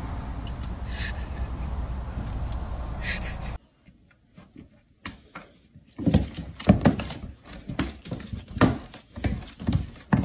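Two cats play-fighting on a hardwood floor: a quick run of irregular thumps and scrapes as their bodies and paws hit and slide on the boards, starting about six seconds in. Before that, the steady low rumble of a car cabin on the move cuts off suddenly.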